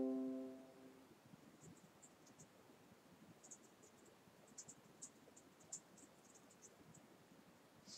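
A single struck musical note dies away within the first second, then near silence with faint, scattered high-pitched ticks.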